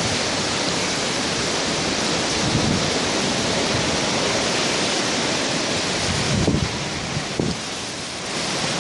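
Typhoon-force wind blowing in a steady, loud rush, with low gusts buffeting the microphone about two-thirds of the way in.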